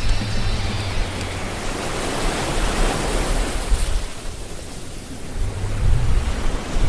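Sea surf breaking and washing over rocks: a steady rush of white water with a low rumble, swelling a little two to three seconds in.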